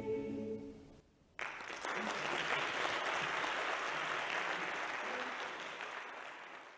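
A mixed choir's final held chord dies away, and after a short silence an audience suddenly starts applauding; the clapping is steady and then tapers off near the end.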